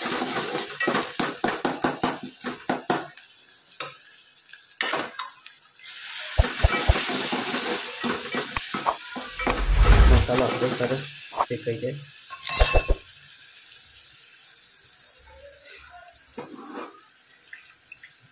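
A metal spoon stirring and scraping a spice masala of tomatoes, garlic and chillies frying in oil in an aluminium pot, the contents sizzling. The stirring strokes come quickly for the first few seconds. There is a heavy thump about ten seconds in, and the frying goes on more quietly after that.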